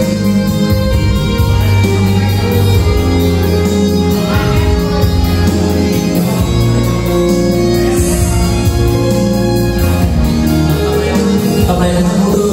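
Karaoke song played loud through home loudspeakers and a subwoofer, with a man singing along into a microphone; the bass notes are heavy and steady.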